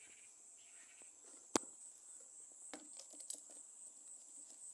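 Quiet handling of small objects: one sharp click about one and a half seconds in and a few lighter clicks later, over a faint steady high-pitched chirring of crickets.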